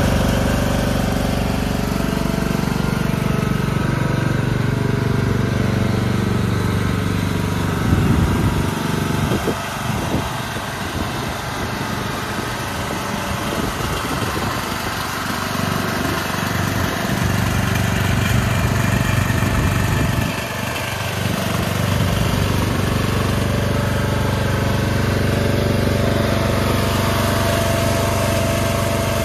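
Toro riding lawn mower's Briggs & Stratton Intek 20 hp engine running steadily, with the sound briefly changing about 8 seconds in and again about 20 seconds in.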